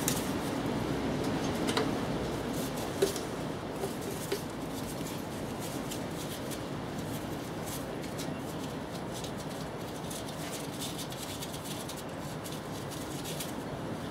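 Small clicks and scrapes of hand work as the timing-belt tensioner nut is fitted and set on a VW AHU diesel engine, with one sharper click about three seconds in, over a steady background hiss.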